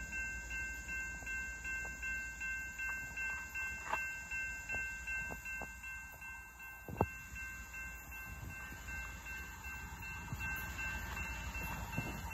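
Grade-crossing warning bell ringing in a steady rhythm of about one and a half strikes a second, with a continuous ringing tone between the strikes, over a low rumble.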